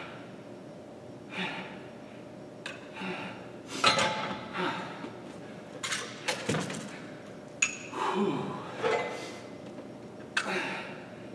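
Dumbbell clinking and knocking against a metal dumbbell set on the floor as it is picked up, set down and lifted, in irregular strikes: the loudest about four seconds in and a quick run of clinks a couple of seconds later. Between the strikes come hard exhales of the exercise, one with a short grunt.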